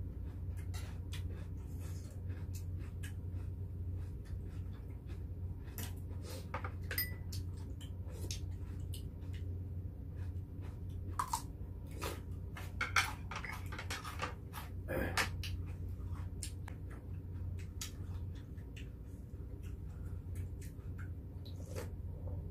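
Spoons and chopsticks clicking against soup pots and bowls while two people eat hot beef rib soup, with a few slurps and chewing sounds, over a steady low hum.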